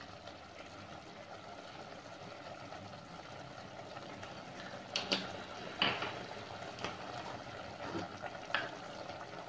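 Chicken simmering in its own released juices in an aluminium pot: a steady low bubbling hiss. A handful of short light clicks and taps come a little past halfway.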